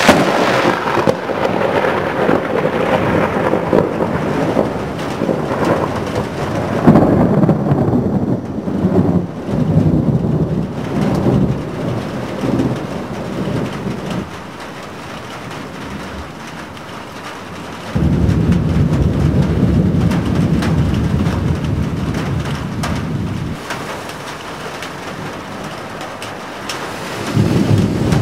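Thunder from a very close lightning strike breaking in suddenly and rolling for about fourteen seconds, swelling again several seconds in, over steady rain. Further loud rumbling starts abruptly about two-thirds of the way through and again near the end.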